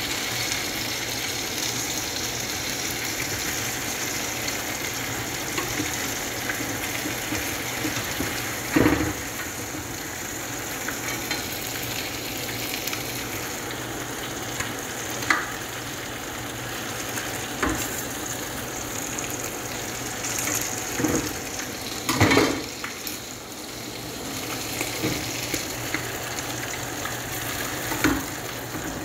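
Marinated chicken pieces sizzling steadily in a frying pan, with a slotted spatula scraping and knocking against the pan several times as the pieces are turned.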